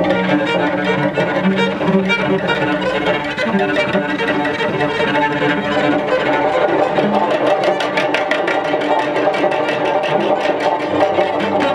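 Free-improvised music for cello and live electronics: the cello bows held low notes inside a dense layered texture, and a rapid run of short clicks comes in about six seconds in.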